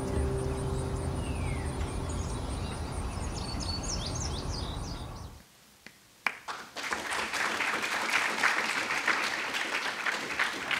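A video's soundtrack ending: sustained low music with birds chirping over it, stopping about five seconds in. After a short pause, audience applause with many hands clapping.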